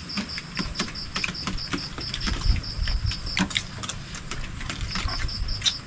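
Spoons and forks clicking and scraping on plastic plates during a meal, a string of short sharp clinks. Behind them an insect chirps in steady high pulses, about six a second, and pauses for a moment past the middle.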